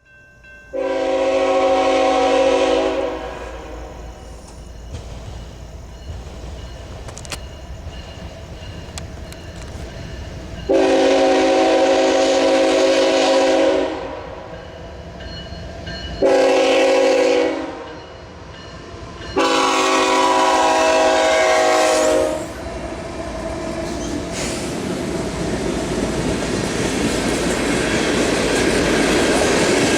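Diesel freight locomotive's air horn sounding the grade-crossing signal: two long blasts, a short one and a final long one, each a chord of several tones. After the last blast the low rumble of the approaching train grows steadily louder.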